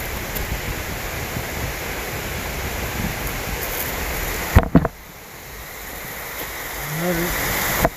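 Steady rushing of a waterfall and creek. About halfway a sharp double knock is heard, after which the rushing drops lower and slowly builds again. Near the end a man's voice is heard briefly.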